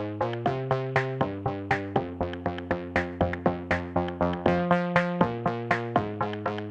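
Background electronic music: a synthesizer plays a quick, even run of plucked notes over held chords that change about once a second.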